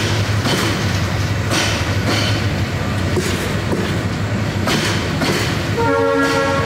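Upaban Express passenger coaches rolling past along the platform: a steady low rumble with irregular clacks of the wheels over rail joints. A short pitched horn-like toot sounds near the end.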